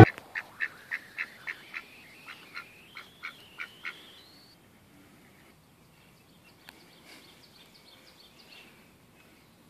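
A domestic duck quacking in a quick run of about a dozen short calls, roughly three a second, over the first four seconds, then falling silent. Faint bird chirps follow.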